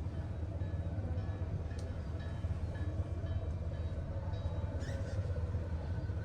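Passenger ferry's engine running, a steady low rumble with faint clicks and rattles over it.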